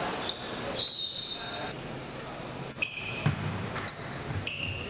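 Basketball being dribbled on a hardwood court, about four bounces in the second half, with short sneaker squeaks over a steady murmur of crowd chatter.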